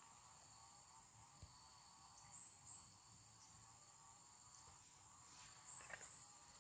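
Faint, steady high-pitched insect chorus with a few short higher chirps; otherwise near silence.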